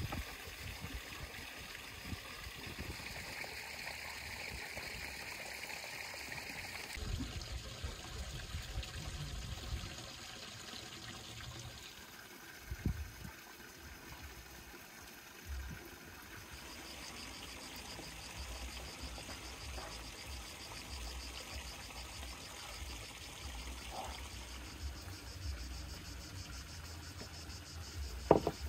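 Outdoor ambience of insects chirping in a steady high buzz that changes after about 7 seconds. In the second half it becomes a fast pulsing trill, over a low wind rumble. A couple of short knocks stand out, the loudest near the end.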